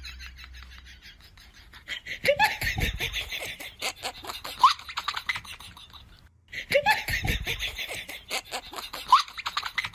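Laughter added over the clip: the same roughly four-second stretch of laughing plays twice in a row, starting about two seconds in, with a short break between the two.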